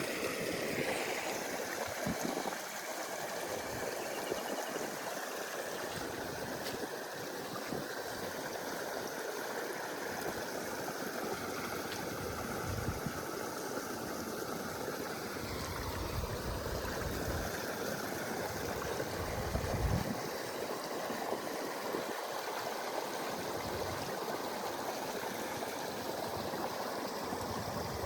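Steady rushing of flowing water, with a few brief low rumbles in the second half.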